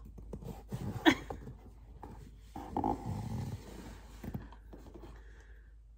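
Cardboard shipping boxes being lifted and shifted into a stack, with rustling and a few knocks.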